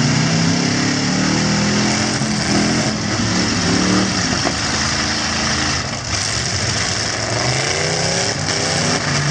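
Several V8 truck engines running and revving together, their pitches rising and falling against each other, with one revving up harder for a couple of seconds near the end.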